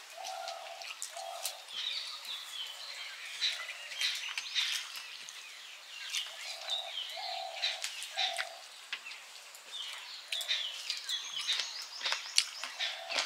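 Birds chirping and calling, with short falling high chirps and a lower call repeated in short notes in twos and threes, over frequent sharp clicks and smacks of eating by hand from steel plates close to the microphone.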